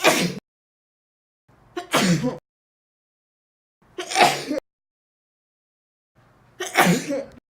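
A person sneezing four times in a row, about two seconds apart, each sneeze preceded by a short intake of breath.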